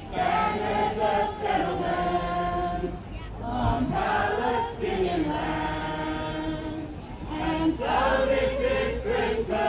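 A group of people singing a carol together, holding long notes.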